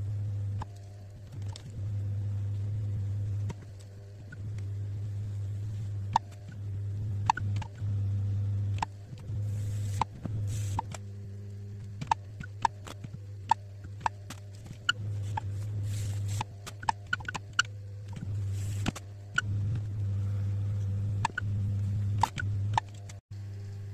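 Electric potter's wheel humming steadily as it turns a large clay bowl, the hum dropping and coming back abruptly several times. Many short sharp clicks and taps sound over it.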